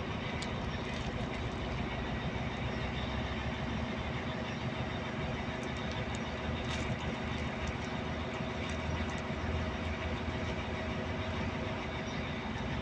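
Caterpillar 14M motor grader's diesel engine idling steadily.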